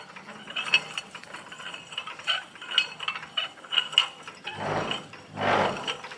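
Hand-cranked tipping gear of a 1959 Welger ZK 80 F rack-and-pinion tipper trailer being wound to lift the bed: the crank and gearing clicking and clinking in quick, uneven ticks. Near the end come two short rushes of noise.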